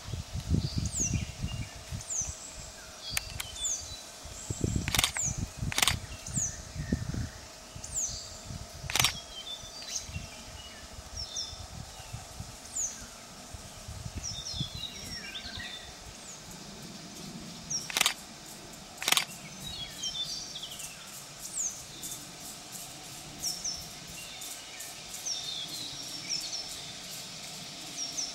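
Small birds chirping, with short high notes sweeping down in pitch and repeating every second or so. There are several sharp clicks and a low rumble in the first few seconds.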